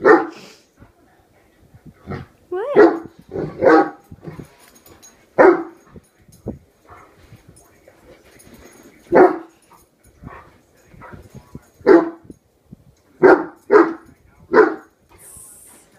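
Young Great Dane barking in single loud barks, about ten in all with irregular gaps of one to four seconds, worked up and alarmed at an object on the floor.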